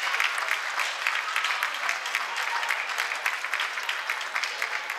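Crowd applauding in a school gym: many hands clapping in a dense, steady patter, with some voices mixed in.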